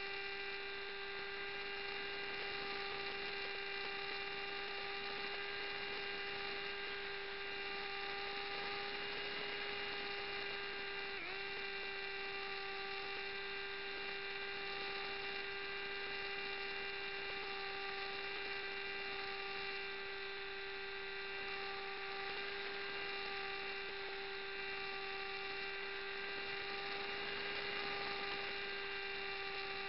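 An RC flying wing's motor and propeller running steadily, heard from a camera mounted on the model, as a constant whine with several overtones. The pitch dips briefly about a third of the way through.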